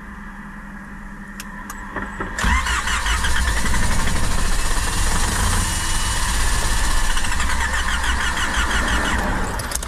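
A few faint clicks, then about two and a half seconds in the starter cranks the engine of a small Lingyang hatchback for about seven seconds, steady and loud, without the engine settling into a run. It is a hard start that the driver puts down to the high altitude.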